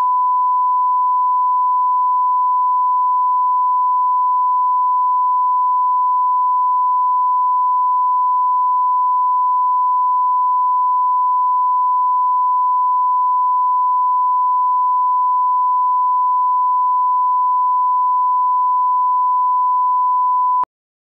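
A steady 1 kHz line-up tone: the reference tone that runs with colour bars at the head of a broadcast master, used for setting audio levels. It cuts off suddenly near the end.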